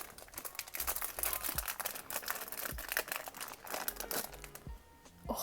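Plastic packaging crinkling and rustling in the hands as a new 7x7 speed cube is unwrapped, a dense run of irregular crackles.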